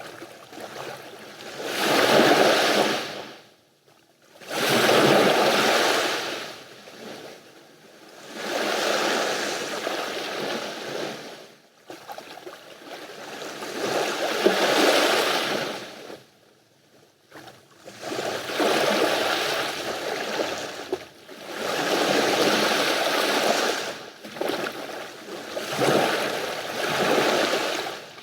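Sea waves breaking and washing up on a beach, the rush of surf swelling and ebbing every few seconds, with short lulls between the surges.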